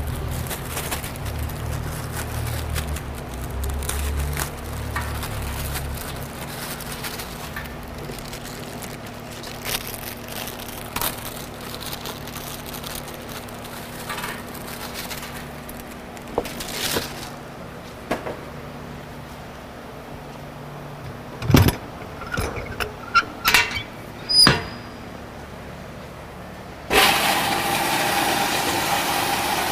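Scattered clinks and a run of sharp knocks, then near the end the Robot Coupe Blixer 45 chopper/mixer's motor starts suddenly and runs with a steady whir as its twin bottom blades chop a batch of crackers.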